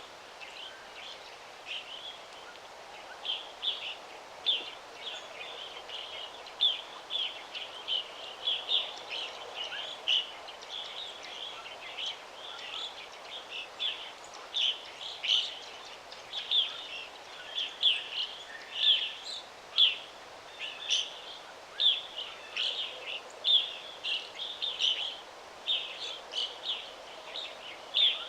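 Songbirds chirping: a steady stream of short, high chirps, several a second, over a faint steady background hiss.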